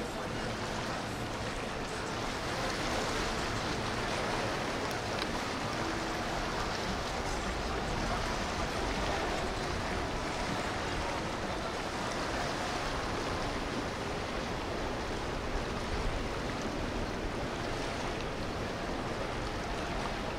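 Steady rushing noise of moving water and wind, without a distinct engine note.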